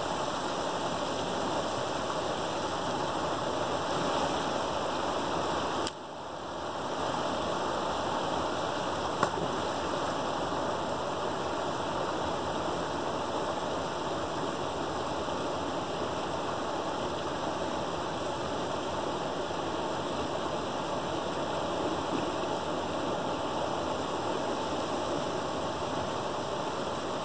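Water rushing steadily as it pours through a gap in a beaver dam of sticks and churns into the stream below. The sound dips briefly about six seconds in, and a single sharp click comes a few seconds later.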